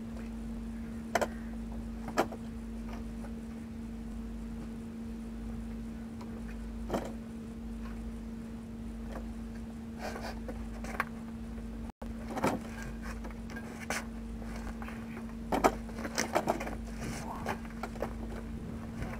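Scattered metallic clinks and knocks of hand tools and a heavy steel brake drum being handled on a truck's rear axle, clustering near the end as the drum is lifted, over a steady low hum.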